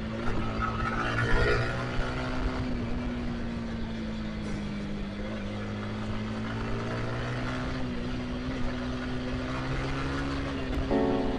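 Yamaha R15 sport motorcycle engine running at a steady cruising speed, its pitch holding nearly level with a slight dip and rise midway, over wind and road noise.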